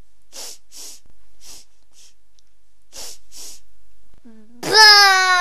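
A young girl sniffing in short puffs, mostly in pairs. Near the end comes a loud, drawn-out voiced cry that falls in pitch as it ends.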